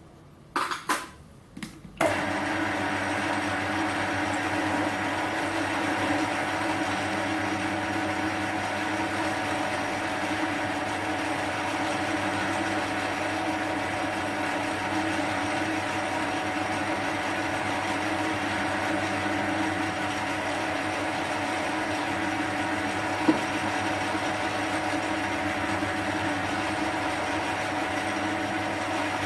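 A few light knocks, then a small metal lathe comes in abruptly about two seconds in and runs steadily, a motor hum with a steady whine over it, with one sharp click near the end.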